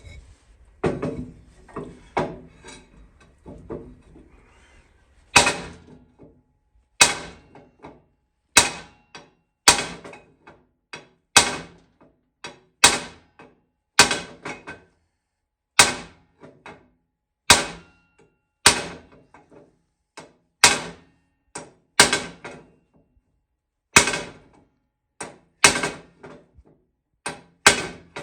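Hammer blows on metal: after a few seconds of lighter clattering, single sharp strikes with a short ring land steadily about every second and a half. This is hammering to drive seized wheel bolts out of a Ford 9N tractor's hub.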